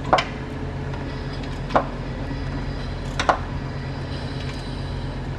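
Three short, sharp clicks about a second and a half apart as the B-series engine's crankshaft is turned over by hand with a wrench, to take pressure off the valves for adjustment. A steady low hum runs underneath.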